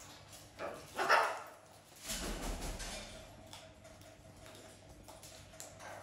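A dog gives a short bark about a second in, followed by a second or so of rustling, scuffling noise.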